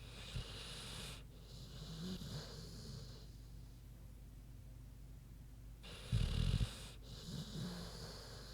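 American Bulldog snoring in deep sleep: two slow snoring breaths about five seconds apart, each a hiss with a low rumble. The second breath carries a short, loud low rattle about six seconds in.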